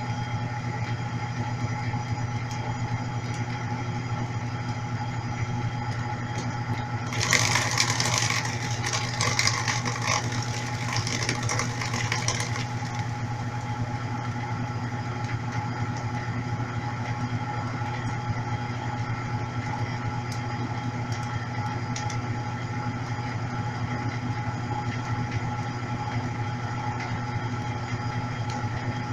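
Brastemp Clean 5 kg top-loading washing machine in its intermediate spin: a steady motor hum with a few whining tones over it. About seven seconds in, a louder noisy rush joins it for about five seconds.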